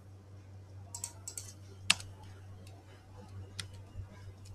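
Computer keyboard and mouse being clicked: a handful of scattered sharp clicks, the loudest about two seconds in, over a low steady hum.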